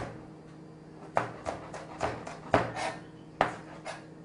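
Chef's knife chopping green onions on a cutting board: about seven sharp knocks of the blade on the board at an uneven pace, starting about a second in.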